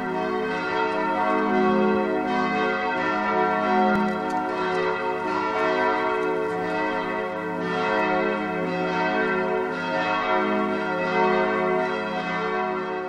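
Church bells ringing together as a continuous peal of overlapping strokes, ringing in the service.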